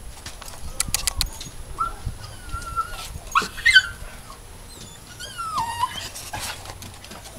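Small dogs whining and yipping with excitement: a long high whine about two seconds in, a sharp yip at about three and a half seconds, then another whine that falls in pitch a little after five seconds. A few sharp clicks sound about a second in.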